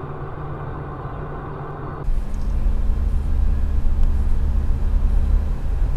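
A car's engine and road noise heard from inside the cabin while driving. About two seconds in it switches abruptly to a louder, deeper rumble from a different car.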